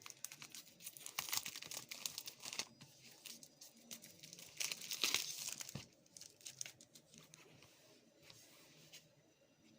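Packaging being torn open and crumpled by hand, in two bursts of crackling over the first six seconds, then only faint handling.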